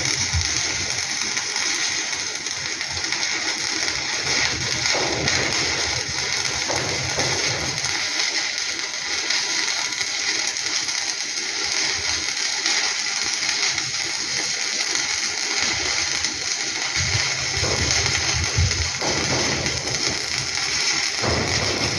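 Stick (arc) welding: the electrode's arc crackling and hissing steadily and evenly as a weld bead is run.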